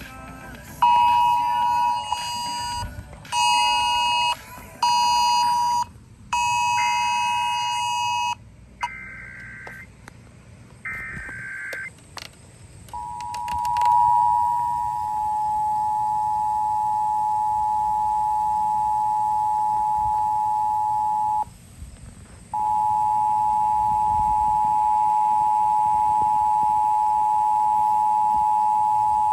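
A phone's Wireless Emergency Alert tone blares in pulses. It is overlapped by the radio's EAS header: three short, harsh data bursts about a second apart. Then the Emergency Alert System two-tone attention signal sounds steadily for about eight seconds, cuts out for about a second, and starts again.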